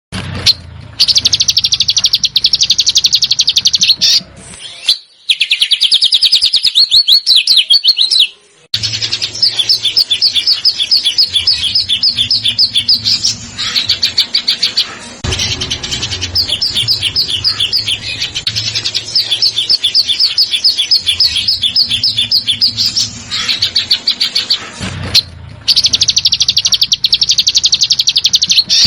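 Songbird singing in long, fast, rattling trills of rapidly repeated high notes, broken by a few short pauses. This is the rapid, rough 'besetan' style of song played as masteran to tutor competition songbirds.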